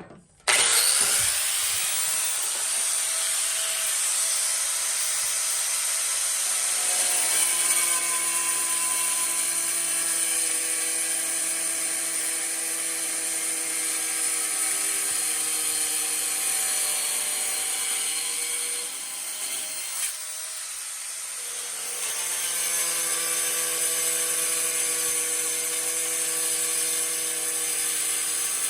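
Angle grinder starting up sharply and running with a steady high whine while cutting through floor tile around a toilet flange; lower pitched tones join as the blade bites into the tile. The cut eases briefly about two-thirds of the way through, resumes, and the grinder winds down near the end.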